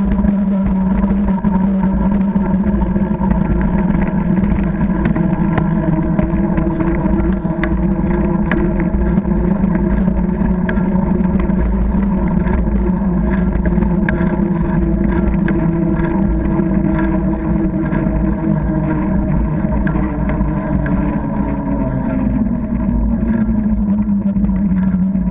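Riding noise from a bicycle-mounted camera on a tarmac path: a steady low rumble with a hum that drops in pitch near the end, and scattered small clicks and rattles.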